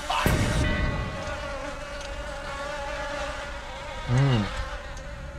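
A mouthful of chow mein noodles slurped in and chewed. About four seconds in there is a short, low, falling "mmm" of enjoyment. A steady high-pitched buzz runs underneath.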